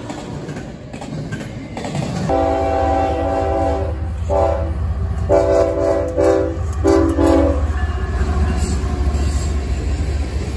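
Double-stack container cars of a freight train rolling past, then a CSX diesel locomotive sounding its multi-note horn in four blasts, two long and two shorter, over the deep drone of its engines as it goes by.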